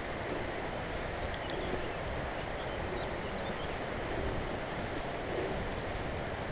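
Mountain bike rolling downhill on a dirt singletrack: a steady rush of wind on the microphone over the low rumble of the tyres, with a few faint ticks about a second and a half in.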